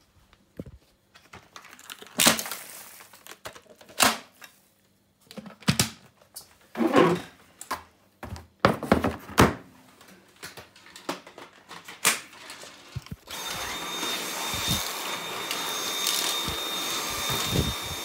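A string of sharp knocks and clunks, then, about thirteen seconds in, a Dyson V8 Absolute cordless stick vacuum starts and runs steadily with a thin high whine over its airflow.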